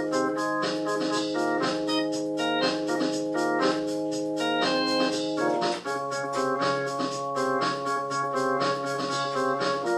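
Organ music: sustained held chords with shorter higher notes moving over them, changing to a new held chord about six seconds in.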